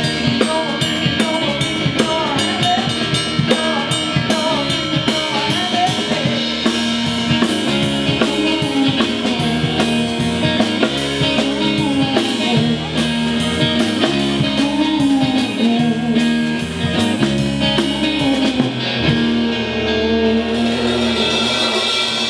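Live band playing an instrumental passage, with drum kit and guitar. The drums drop out about three seconds before the end, leaving the guitar.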